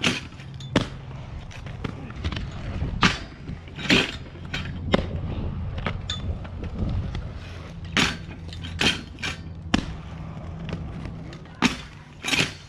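Aggressive inline skates rolling on concrete, a steady low wheel rumble, with about a dozen sharp clacks and thuds as the skates hit, grind and land off a metal flat-bar rail.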